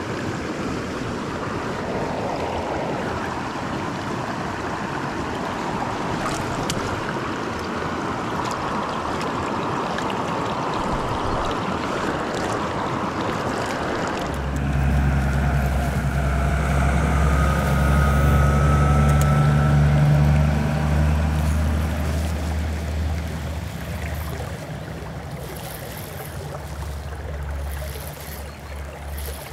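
Rushing river water. About halfway through, a low engine hum sets in, grows louder for a few seconds and then fades, as a motor passes.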